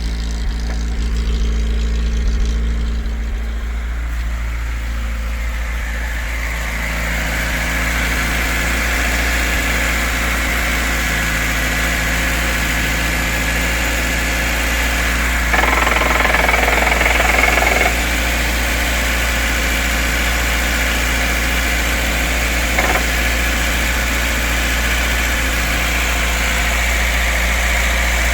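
VAZ-2104's four-cylinder petrol engine running cold with a knock. The owner suspects a worn connecting-rod bearing, since the knock comes only on a cold engine and goes away once warm. About sixteen seconds in, a louder rushing noise rises over it for roughly two seconds.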